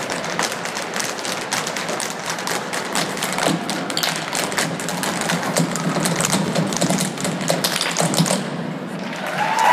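Irish step dancers' hard shoes tapping and stamping on a stage floor in quick, dense rhythm, with no music. The taps thin out near the end as applause begins.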